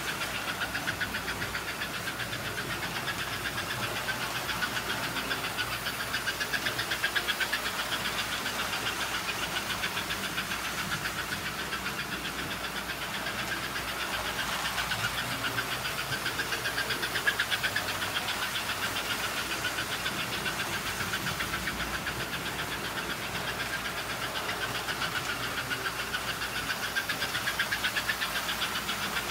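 Vintage American Flyer toy trains running on metal track: a steady, rapid mechanical rattle of wheels, gears and motors, swelling and easing slightly as the trains go round.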